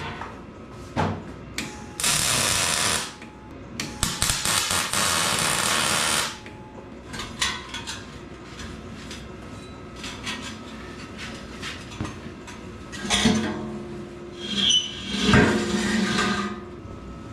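MIG welder laying two short welds, about one and two seconds long: the arc crackles over the steady whine of the wire feed, which runs only while the arc is lit. Scattered clicks follow, then a few louder knocks and rattles near the end.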